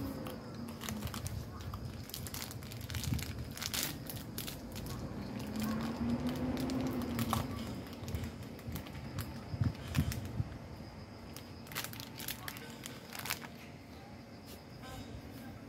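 Plastic snack-cake wrapper crinkling as it is handled, with irregular crackles and clicks.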